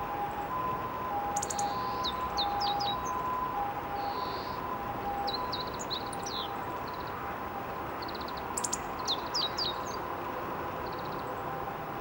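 Male meadow bunting singing: three short phrases of quick, high, down-slurred notes a few seconds apart. A distant two-tone siren alternates high and low in the background, fading about halfway through.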